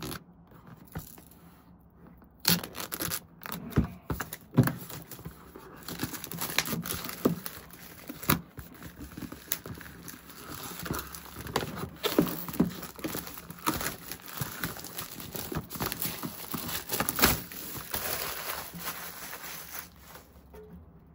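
Clear plastic wrap being torn and peeled off a cardboard retail box, crinkling and crackling, with scattered sharp taps and knocks as the box is handled.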